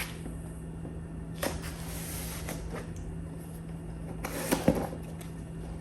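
A cardboard box being opened and its packaging handled: rustling and scraping about a second and a half in, then a louder bout with a few sharp clicks near the end, over a steady low hum.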